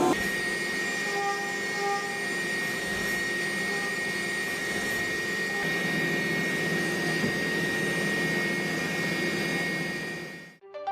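CNC vertical machining center milling a pre-hardened steel mold block with a carbide end mill, a steady cutting noise with a high whine held throughout. It fades out near the end.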